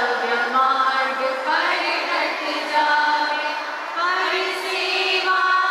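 A group of young children singing together, with long held notes.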